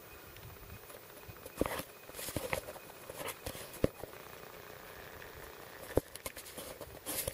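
Irregular crunching steps in snow, with a few sharp clicks from handling.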